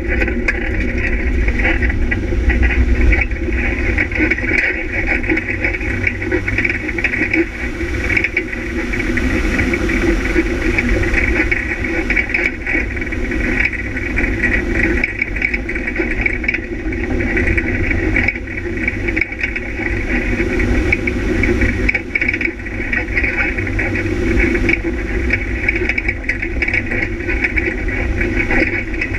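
Vehicle engine running steadily under way at a fairly constant pitch, heard from on board, over a low rumble from the rough track.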